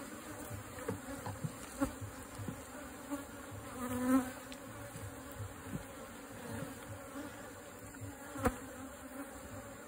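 Honeybee colony buzzing steadily around the opened comb, with a few light clicks, a short louder hum about four seconds in and a sharp knock about eight and a half seconds in.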